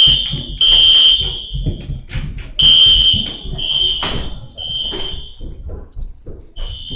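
Hotel fire alarm sounding a steady high-pitched electronic tone in the three-beep evacuation pattern: groups of three beeps of just under a second each, with a longer pause between groups.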